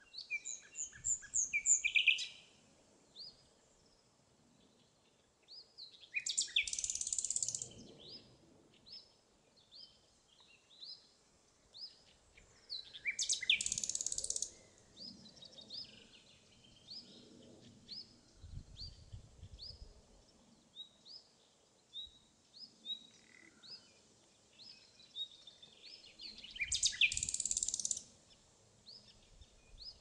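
Common nightingale singing: four loud song phrases of rapid, varied notes, each about two seconds long, at the start, about 6 s in, about 13 s in and near the end. Softer short chirps fill the gaps between the phrases.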